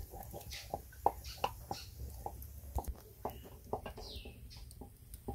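Light, irregular clicks and knocks from a clay pot of atole being stirred over a crackling wood fire. One short falling bird call comes about four seconds in.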